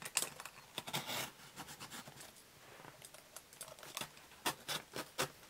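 Utility knife blade scraping and slicing along the packing-tape seam of a cardboard box, in short, faint scratchy strokes with a pause in the middle.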